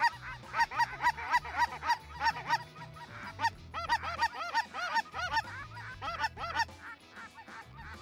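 Canada goose calls: rapid honks and clucks, about four or five a second, with a short pause about three seconds in, thinning out near the end.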